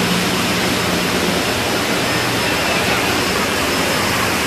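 Steady, loud rushing roar of industrial machinery and ventilation inside a slaughterhouse hall, with a faint low hum that fades out about a second and a half in.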